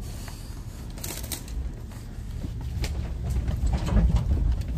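Truck driving slowly over a rough dirt track, heard from inside the cab: a steady low rumble with scattered knocks and rattles. The rumble swells about four seconds in.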